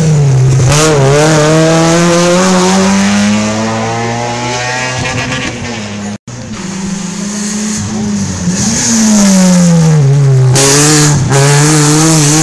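Rally car engines taking a corner one after the other. The first car's revs drop as it slows and then climb steadily as it accelerates away. After a brief dropout, a second car's revs fall, two short sharp cracks sound as it bottoms out, and the revs rise again near the end.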